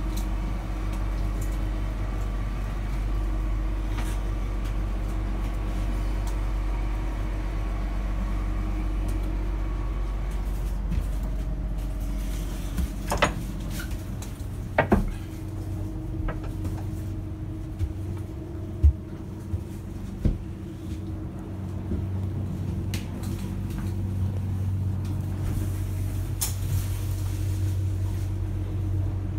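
Steady low machinery hum below deck on a ship, with a few sharp knocks and clicks in the middle.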